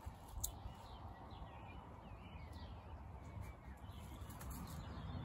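Faint outdoor birdsong: short chirps repeating over a steady low background hum, with a few light taps.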